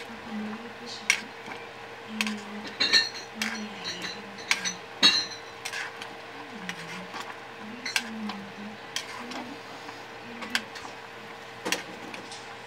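Metal ladle stirring soup in a stainless steel pot, clinking and knocking against the pot's sides at irregular moments, over a steady low hum.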